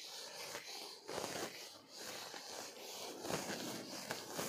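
Whiteboard duster rubbing across a whiteboard in several wiping strokes.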